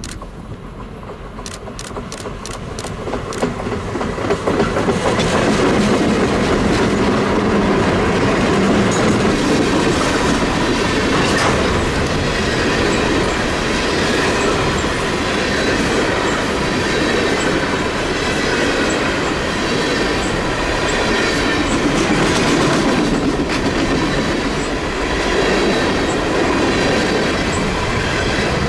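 Freight train passing: three EMD GP38-2 locomotives with 16-cylinder 645 diesels, growing louder over the first five seconds as they come by. A long string of empty coal hopper cars follows, rolling past with a steady clickety-clack of wheels over the rail joints.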